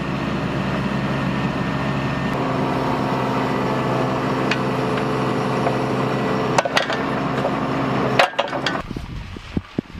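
Bobcat mini excavator's diesel engine running steadily while digging, with a few sharp metallic clanks from the machine. The engine sound stops abruptly a little after eight seconds in, leaving wind and rustling.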